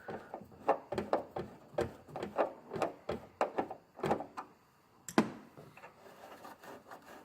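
A Phillips screwdriver backing a screw out of the tail-light trim: a series of short creaky clicks, about two a second, as each turn works the screw loose, then a brief pause and one sharp click a little after five seconds in.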